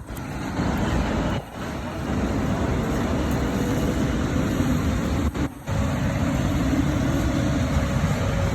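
Fire trucks' engines and pumps running with a steady rumble and a faint hum. The sound drops out briefly a few times.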